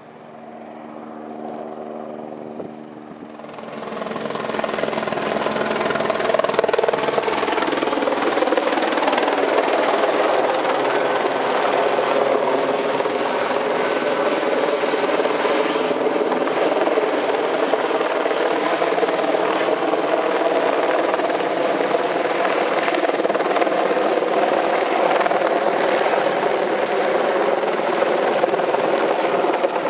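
A helicopter with a load slung beneath it comes closer, its sound rising over the first few seconds. It then runs loud and steady, rotor and engine, as it hovers near overhead.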